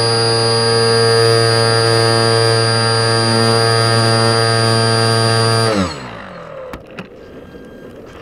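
Brushless electric motor and propeller of a Radian Pro glider running steadily under power, heard from on board as a loud buzzing whine with many overtones. About six seconds in the motor is cut and the whine slides quickly down as the propeller winds down. What remains is a low hiss of air with two faint clicks.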